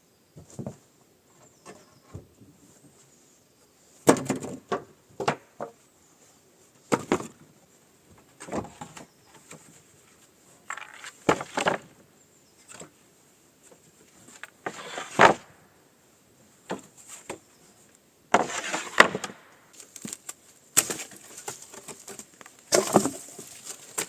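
Irregular knocks, clatters and scraping of hands-on work with wood, coming in short bursts with quiet gaps between them; a few bursts last about a second.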